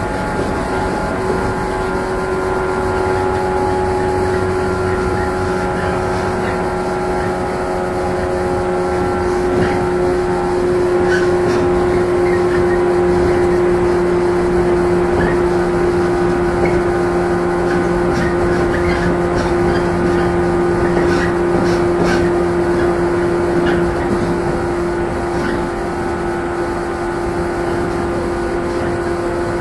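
JR 115-series electric motor car (KuMoHa 115-320) running along the line, heard from inside the car: a steady hum of traction motors and gears over rumbling wheel-on-rail noise, growing a little louder in the middle.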